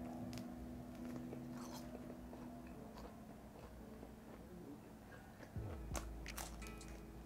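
Biting and chewing a slice of fire-brick-oven pizza close to a clip-on microphone, with crisp crunches from the charred crust and wet mouth sounds; a sharper bite comes near the end.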